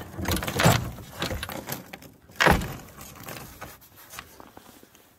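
Steel leg-hold trap and its chain clinking and rattling as they are handled, with two louder knocks, one about half a second in and one about two and a half seconds in, and the rattling dying away near the end.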